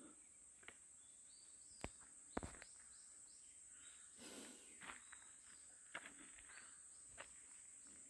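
Faint, steady high-pitched drone of insects, with a few scattered soft footsteps and crackles on forest-floor litter.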